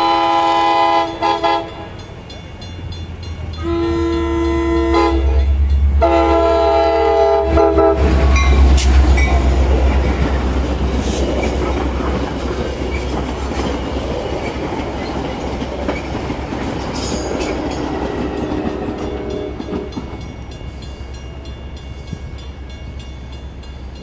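Metra commuter train's air horn blowing several long blasts as the diesel-led train approaches, with a heavy low engine rumble building under them. The train then passes close by, its bilevel coaches' wheels rattling and clicking over the rail joints, the noise slowly falling away near the end.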